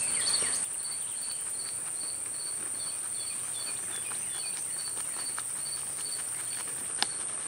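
Insects chirping: a steady high-pitched trill with a cricket chirping over it about two or three times a second, and a single sharp click near the end.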